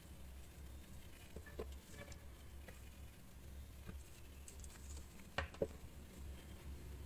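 Faint handling sounds of felt pieces and a hot glue gun: light taps and rustles over a low hum, with two sharper clicks a little past five seconds in.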